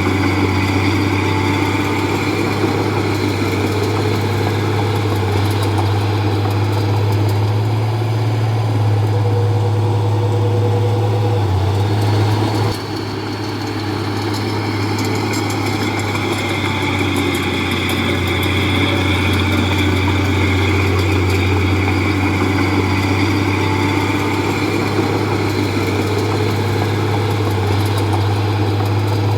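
Komatsu D31P bulldozer's diesel engine running steadily with a deep hum. A little under halfway through it drops in level suddenly, then builds back up over a couple of seconds.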